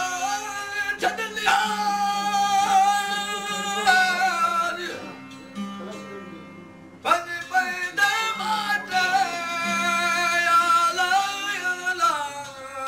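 Male folk singer singing over the steady drone of long-necked plucked lutes, in two sung phrases with a short break in the middle.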